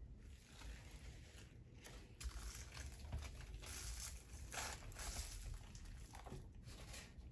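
Faint rustling and crinkling handling noise, coming in several irregular spells with short gaps between.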